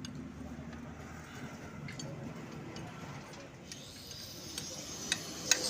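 A few sharp metallic clicks, like hand tools knocking on metal, near the end, over a faint steady low hum.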